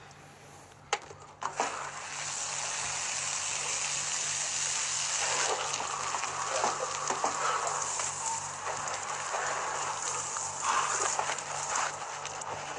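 Shower head spraying water onto a person and splashing on hard ground: a steady hiss that starts about a second and a half in, after a couple of sharp clicks, with small splashes through it.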